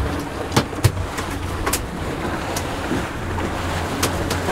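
A boat's engine running steadily under wind and sea-water noise, with a few sharp clicks or knocks scattered through.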